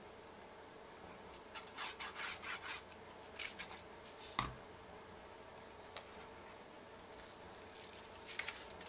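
Glue bottle's applicator tip rubbed over cardstock in short scratchy strokes, then a single knock a little over four seconds in. More short rubbing near the end as the glued cardstock layer is pressed into place.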